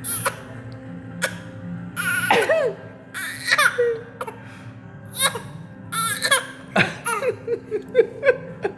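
Young child coughing repeatedly in short fits, some coughs running into brief whimpering cries.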